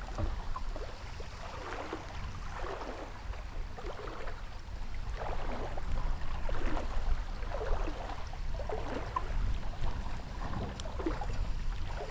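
Small waves lapping and slapping against a kayak's hull in irregular splashes about once a second, over a steady low rumble of wind on the microphone.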